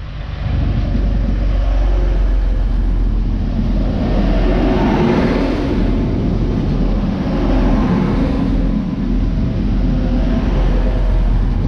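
Two coupled Class 185 diesel multiple units running past close by, with the underfloor diesel engines and wheels on the rails making a steady loud rumble. The engine note swells twice as the powered cars go by.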